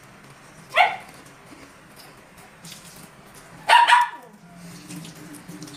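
A small dog barking sharply at a person eating, begging for food. There is one bark about a second in, then two in quick succession near four seconds.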